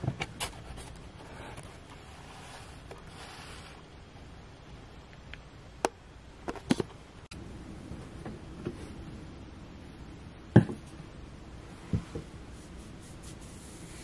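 Scattered handling knocks and taps, the loudest about ten and a half seconds in, over a faint steady room hum.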